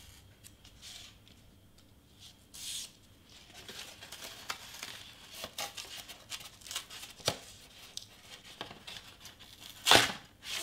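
Craft knife cutting through foam board: scattered crackling and scraping with short tearing sounds, and one louder, sharper rip near the end. The blade is not cutting all the way through, which the crafter takes for a sign that it is due for replacement.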